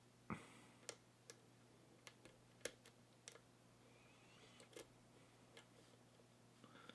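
Faint, irregular small clicks and ticks of a lock pick and tension wrench working the pin stack inside an Abus 72/40 padlock during single-pin picking.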